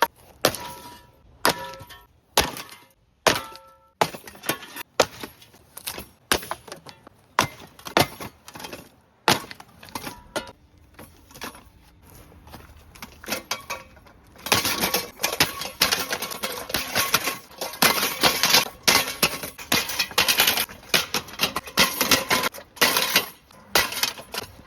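A ceiling fan being smashed apart by hand: repeated sharp blows cracking and breaking its housing, a few in the first half leaving a short ringing tone. About halfway through, the strikes turn into a fast, continuous clatter of blows and breaking pieces.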